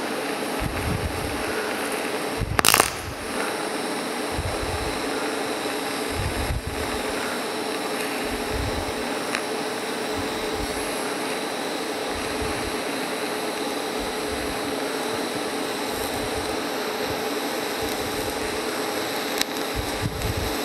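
TIG welding arc burning steadily while silicon bronze filler rod is fed into a cast iron casting: an even hiss with a steady hum. A sharp crack comes about three seconds in, the loudest sound.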